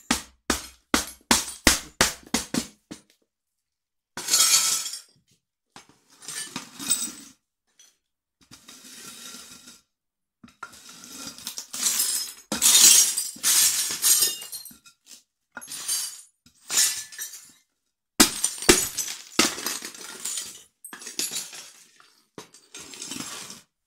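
Ceramic plates and a glazed bowl being stomped and broken under platform high heels: a quick run of sharp heel strikes on a plate, about three a second, then repeated bursts of shattering crockery and crunching shards.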